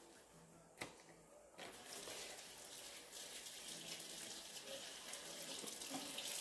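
A kitchen faucet runs into the sink, starting about a second and a half in as a steady rush of water. A single short click comes just before it.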